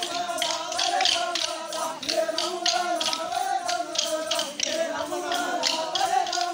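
Wooden sticks of a Tonya Khel stick dance clacking together in a steady rhythm, about five sharp strikes a second, over a wavering sung melody.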